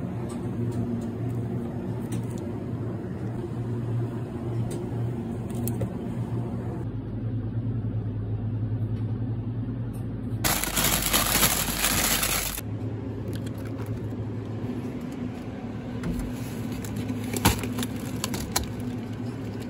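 Supermarket ambience: the steady hum of refrigerated display cases and freezers, with scattered light clicks and rattles, and a louder rush of noise for about two seconds a little past halfway.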